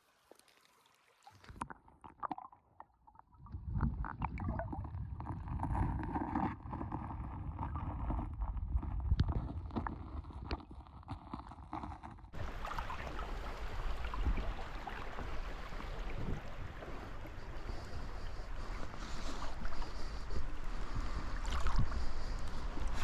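Creek water running, with low wind rumble on the microphone and a few small clicks. It begins after a second or so of near silence, and about twelve seconds in it changes abruptly to a fuller, brighter rush of water.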